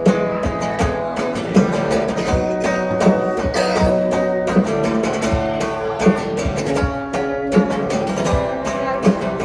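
Instrumental break in a song: guitar playing over a steady low beat about every three-quarters of a second, with no singing.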